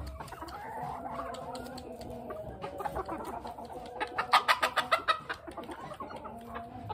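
A flock of Mille Fleur and Barbu de Watermael bantam chickens clucking as they crowd in to eat treats from a hand. About four seconds in comes a quick run of sharp taps, several a second, for just over a second.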